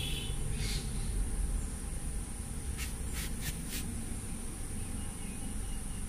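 Steady high-pitched insect trill, typical of crickets, with a brief chirp at the start and four quick, sharp clicks about three seconds in.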